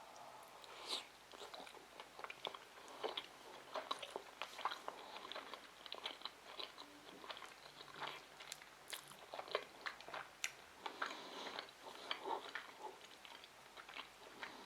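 Close-up eating sounds: a person chewing sushi rolls with the mouth near the microphone, with irregular wet clicks and smacks.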